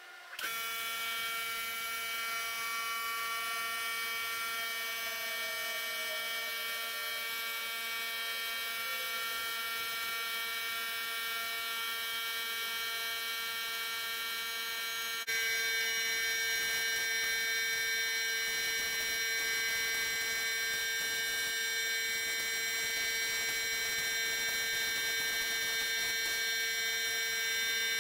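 Steady electric motor hum with a whine, from the air supply feeding an HVLP paint spray gun, over a faint hiss. It starts suddenly, and about halfway through it steps up louder and changes pitch.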